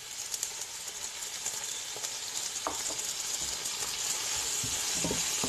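Garlic and onion frying in vegetable oil in a pan with soy sauce just added, sizzling steadily and slowly growing louder. A few short knocks of the stirring utensil against the pan come in the middle and near the end.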